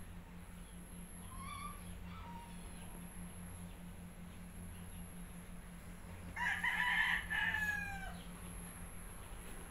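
A rooster crows once, about six seconds in: a call of roughly two seconds that drops in pitch at the end. A fainter, shorter call comes about a second in.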